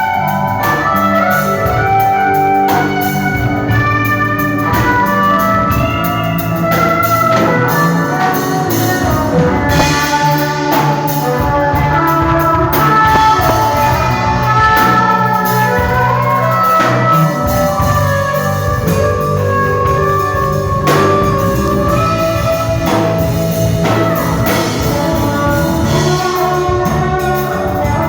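A band playing instrumental music, with sustained melody notes over a steady bass line.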